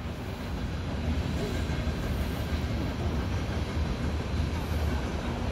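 Freight train of oil tank cars rolling past, a steady low rumble of wheels on the rails, the cars running quiet.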